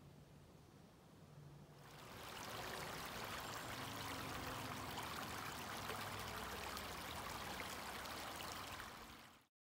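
Near silence for about two seconds, then a small shallow creek running steadily over rocks, a continuous rush of water that fades out just before the end.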